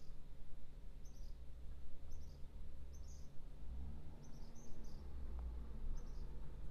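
Yarn squeaking against a metal Tunisian crochet hook as loops are pulled off the hook on the return pass: short high chirps, roughly one a second and irregular, over a low steady hum.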